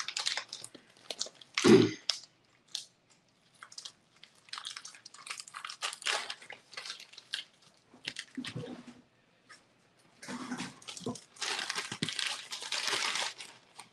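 Plastic cheese wrapper crinkling and rustling in bursts as it is peeled open, with one thump about two seconds in.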